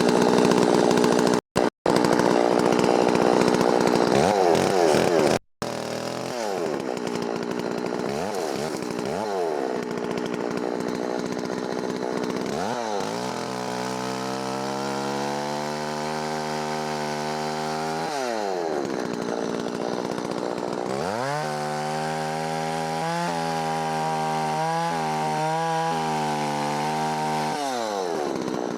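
Holzfforma 660 clone two-stroke chainsaw running, revved up and down several times and held at high revs for a few seconds at a stretch, the pitch dipping briefly now and then. The sound cuts out abruptly a few times in the first seconds.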